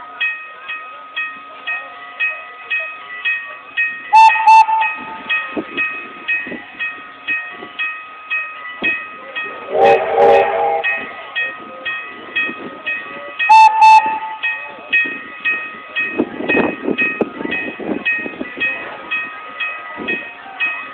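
Steam train with a bell ringing steadily about twice a second. A steam whistle blows for about a second near the middle, two sharp loud sounds come at about four and thirteen seconds in, and there is a burst of hissing steam near the end.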